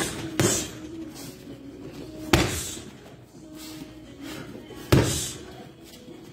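Gloved punches landing on a hanging heavy bag: hard thumps at the start and half a second later, then two more about two and a half seconds apart.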